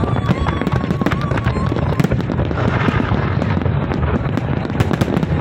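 Large fireworks display: a dense, continuous barrage of shell bursts and crackling over a heavy low rumble.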